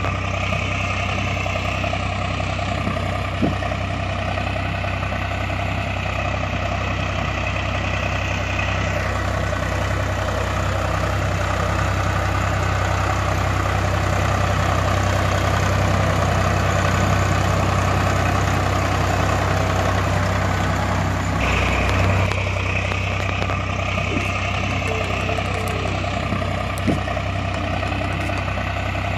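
Tractor diesel engine idling steadily, with an even low beat. It is a recorded engine sound laid over the toy footage, and its tone shifts slightly twice where the recording is spliced.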